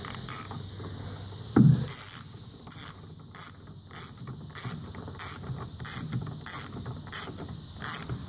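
Socket ratchet clicking in short, even bursts about twice a second as it snugs the snowmobile's chain case drain bolt, after a single knock about a second and a half in.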